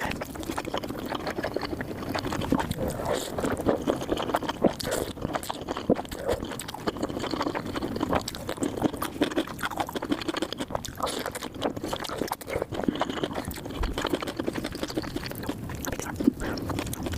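Close-miked chewing and eating sounds: a continuous run of wet smacks and clicks from a mouth working through food.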